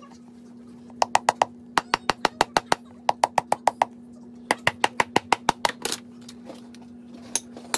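Quick runs of sharp taps, about seven a second, in several bursts with short pauses, over a steady low hum.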